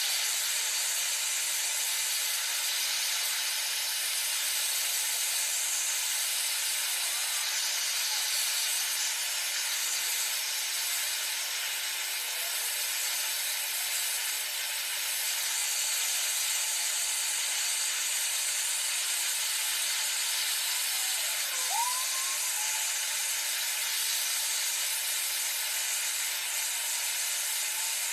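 Gas blowtorch flame hissing steadily as it chars the cut face of a log slice.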